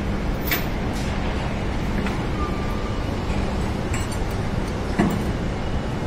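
Heavy machinery of a truck-unloading platform with a loaded lorry on it: a steady loud rumble with a constant low hum, and a few sharp metallic clinks.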